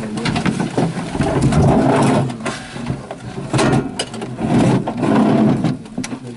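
Tank engine running, heard from inside the crew compartment, with loud surges of about a second and sharp rattles and knocks from the hull interior.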